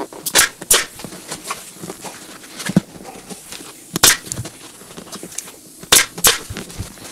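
Pneumatic Surebonder upholstery stapler firing staples through a vinyl motorcycle seat cover. About five sharp snaps: two close together near the start, one about four seconds in, and two near the end.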